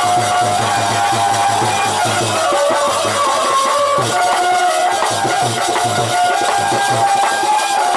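Instrumental folk-music interlude: a harmonium plays a melody of long held notes over a quick, steady drum beat with light percussion.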